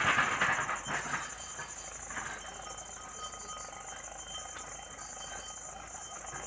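Insects chirping steadily in a high, pulsing drone, with fainter steady trills underneath. A brief burst of noise comes in the first second.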